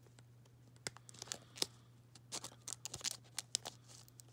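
A small paper-like care tag being handled and tugged between the fingers, giving a quick, faint string of crinkles and crackles.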